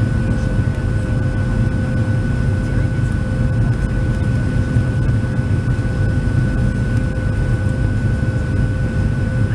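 Cabin noise of a Boeing 737-700 in flight, heard from a window seat over the wing: a steady low drone of its CFM56 engines and rushing air, with two faint, steady whining tones above it.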